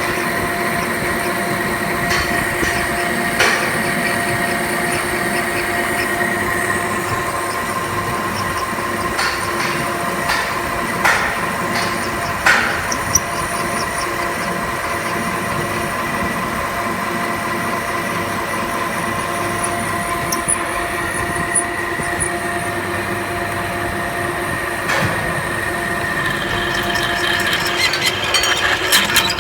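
Metal lathe running with a steady whine, with a few sharp clicks along the way and a spell of rapid ticking near the end.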